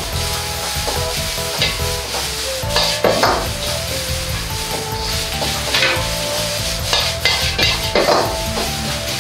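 Shredded carrots and bean sprouts sizzling in a hot wok while a metal wok ladle stirs and scrapes them against the pan, with a few louder scrapes spread through.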